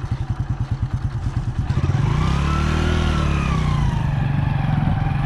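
Motorcycle engine running with an even, fast beat, then revving up about two seconds in and settling back down.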